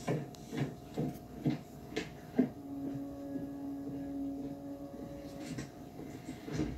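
Footsteps walking at about two a second, played back from a TV. A steady low tone runs for a couple of seconds in the middle, and a few more steps come near the end.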